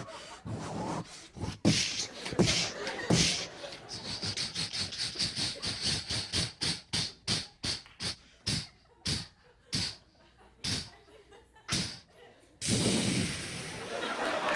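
Mouth-made sound effects of a steam train chugging: short hissing chuffs that spread steadily further apart as the train slows to a stop. A burst of audience applause follows near the end.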